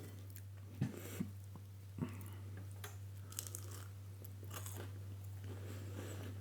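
A person chewing a mouthful of breaded vegan southern fried strip, quietly, with a few faint crunchy clicks about one and two seconds in.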